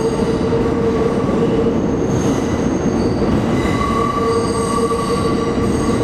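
Budd R32 subway train running in the tunnel: a steady rumble with a high wheel squeal that swells about four seconds in and then eases.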